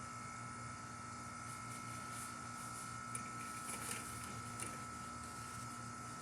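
Ruud Achiever outdoor air-conditioner condenser with a scroll compressor, running steadily: an even hum with a constant whine over it. A few faint ticks come about halfway through.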